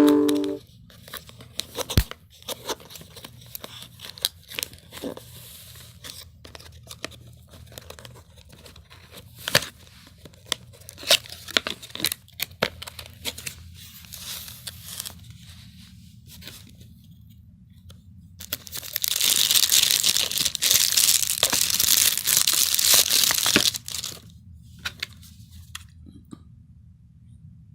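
Packaging of a boxed compact camera being handled: scattered clicks, taps and rustles, then about two-thirds of the way in a continuous tearing sound lasting some five seconds as packaging is ripped open, followed by lighter rustling.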